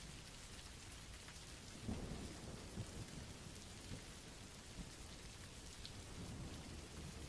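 Faint rain ambience sound effect: a steady hiss of falling rain, with a low rumble rising about two seconds in and rolling on unevenly.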